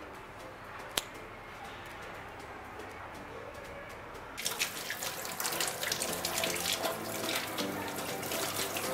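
Water running from a tap into a sink, splashing, starting about halfway through after a quiet stretch broken by a single click.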